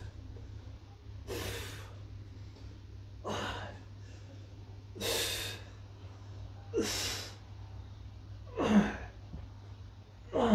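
A man breathing out hard with each sit-up: a forceful puff of breath about every two seconds, six in all, a few of them starting with a short grunt of effort.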